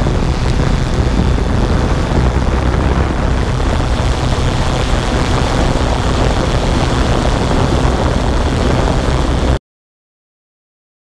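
Drone flying, its propellers and the wind heard on its onboard microphone as a loud, steady rushing noise that cuts off suddenly near the end.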